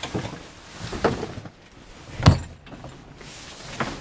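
Handling a bagged sail on a yacht deck: rustling of the sail bag, a few light knocks and one heavy thud about two seconds in.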